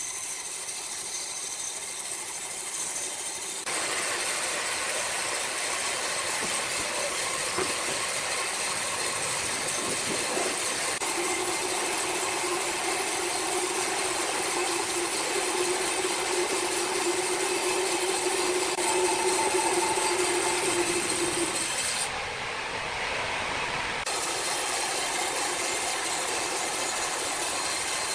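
Sawmill machinery running with a steady, loud hissing noise that changes abruptly a few times. A steady mid-pitched hum runs through the middle for about ten seconds.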